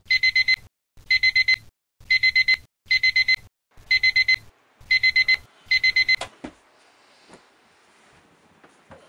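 Alarm clock beeping to wake a sleeper: seven short bursts of about four quick, high electronic beeps, roughly one burst a second. It stops about six seconds in, leaving only faint soft rustles.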